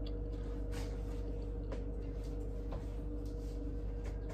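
Room tone: a steady low hum carrying a faint steady tone, with a few soft clicks scattered through it.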